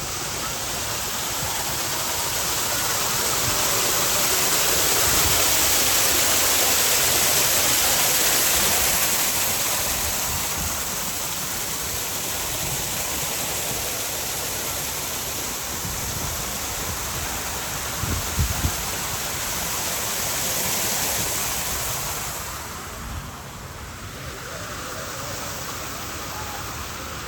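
Steady rush of falling water from a water feature, swelling over the first few seconds and fading away shortly before the end. A couple of brief low thumps come about eighteen seconds in.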